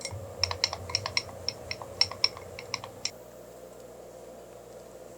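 A quick run of light, irregular clicks lasting about three seconds, over a low hum that stops with them.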